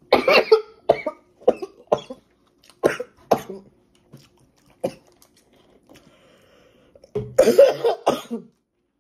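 A woman's coughing fit: a burst of hard coughs at the start, single coughs spaced out over the next few seconds, and another longer burst of coughing near the end. She puts it down to something spicy going down the wrong way.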